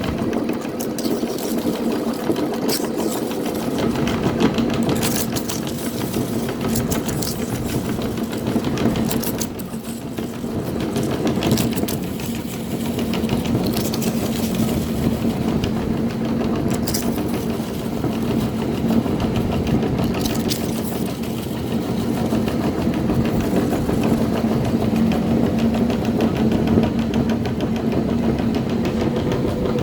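Electric meat grinder motor running with a steady hum, with scattered crackles as corn chip snacks are crushed in the grinder.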